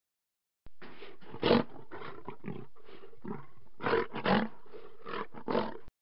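Lion roaring in a run of short, repeated calls, starting under a second in, the loudest about a second and a half in and again around four seconds in.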